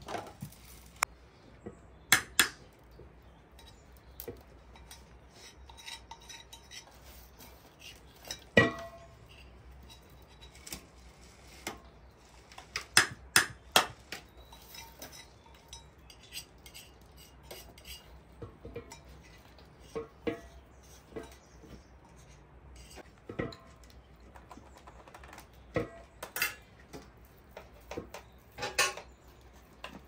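Metal utensils and dishes clinking and knocking now and then against metal trays, bowls and pots, some strikes ringing briefly.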